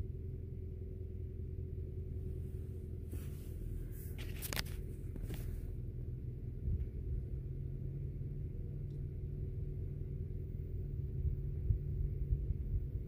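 Vehicle engine idling with a steady low rumble and a constant hum, heard from inside the cab. A few brief scratchy noises come about three to five seconds in.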